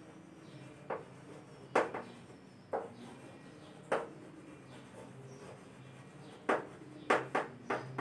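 Chalk tapping and scraping on a chalkboard as letters are written: short, sharp strokes about once a second, then several in quick succession near the end.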